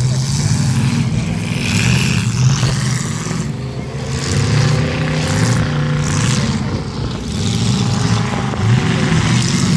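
Demolition derby cars' engines revving, loud and continuous, the pitch rising and falling as the drivers work the throttle.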